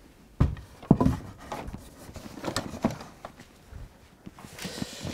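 Handling knocks from a timber batten being taken out from under a model railway baseboard: a few hollow wooden knocks and bumps, the loudest about a second in, then lighter clicks. Near the end a brief rustle of clothing and shuffling as he gets up off the floor.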